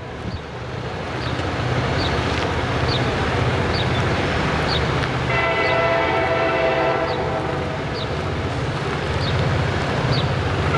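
Distant approaching freight train led by an EMD SD45-2: steady low rumble of its diesel locomotives, with the lead locomotive's air horn giving one long blast about halfway through and starting another at the very end.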